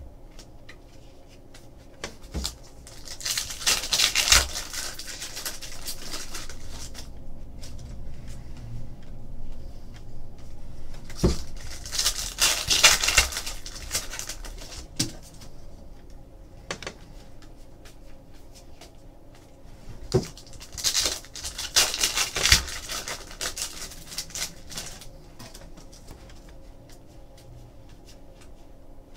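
Trading card pack wrappers being torn open and crinkled in three bursts several seconds apart, with quieter shuffling and light taps of cards between.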